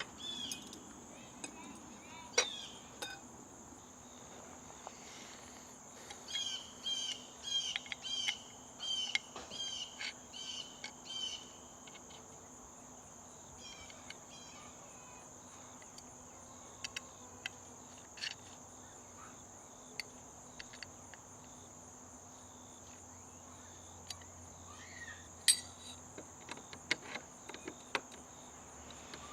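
Outdoor ambience: a steady high-pitched insect drone, with a bird giving a quick run of repeated chirps for a few seconds and scattered light clicks and taps.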